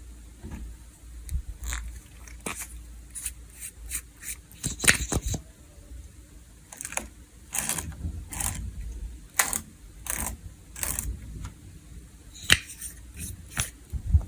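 Crispy slime being pressed and worked by hand, giving irregular sharp crackles and pops over a low handling rumble.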